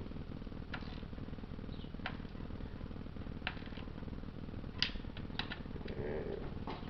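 Scattered light clicks and taps from tools and bolts being handled while the bolts are tightened on a BMW 5L40E transmission, about eight irregular clicks over a steady low background hum.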